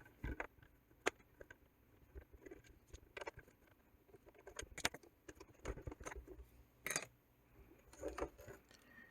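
Faint, irregular clicks and light knocks as a wheel is taken off a Hoover Quest 700 robot vacuum: small plastic and metal parts being handled.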